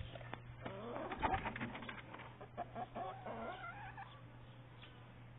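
Chickens clucking and squawking, with a flurry of scuffling clicks in the first two seconds and wavering calls after.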